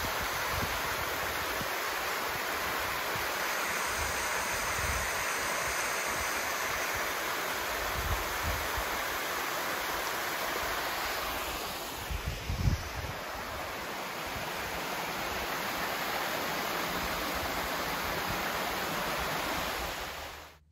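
Wind rushing across open ground, a steady hiss with irregular low gusts buffeting the microphone.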